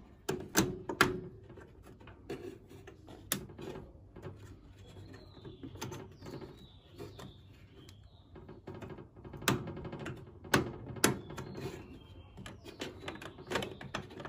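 Sharp plastic clicks and knocks as a repaired plastic microwave door-latch bracket is handled and fitted back into the oven's metal frame. A few come in the first second, one a few seconds later and a group about ten seconds in.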